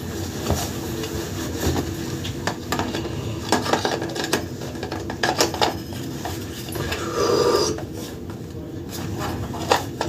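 Handling noise from a rubber gas mask and a loose robe: fabric rustling with scattered light clicks and knocks as the mask straps are adjusted.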